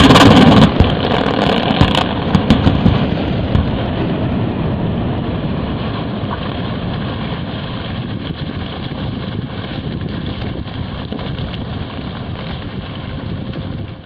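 Controlled rock blast in a drill-and-blast excavation: a sudden loud detonation, a few sharper cracks about two to three seconds in, then a long steady rumbling noise that eases slowly and cuts off at the end.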